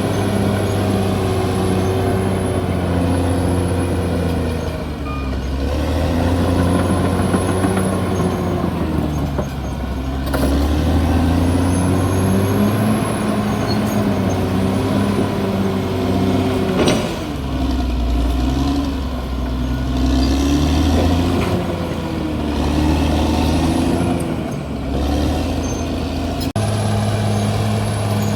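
CAT D6R XL bulldozer's diesel engine working, its pitch rising and falling as the load changes, with a faint high whine coming and going. There is a sharp click about 17 seconds in, and the sound changes abruptly near the end.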